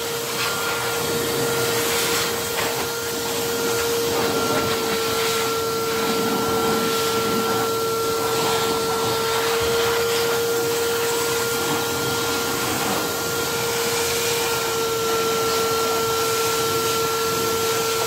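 Stainless-steel wet-and-dry vacuum cleaner running steadily, an even motor whine over a rushing hiss, as its hose nozzle sucks dust out of a car's engine bay.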